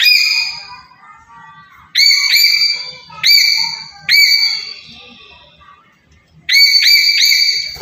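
Black-capped lory giving loud, high whistling calls, each sweeping sharply up and then holding steady: two close together about two seconds in, single calls about three and four seconds in, and a quick run of three near the end.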